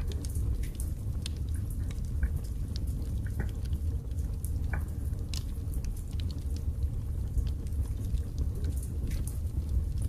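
Wood fire burning in a fireplace grate: a steady low rumble from the flames with irregular sharp crackles and pops from the burning split logs, a few of them louder.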